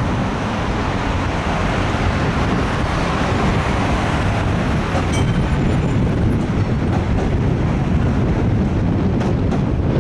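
W-class tram running past on street track amid road traffic, a steady noise with a strong low end.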